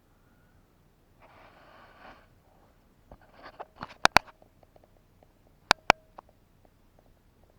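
Handling noises: a short rustle about a second in, then two pairs of sharp clicks or knocks, around four and six seconds in, with a few faint ticks between.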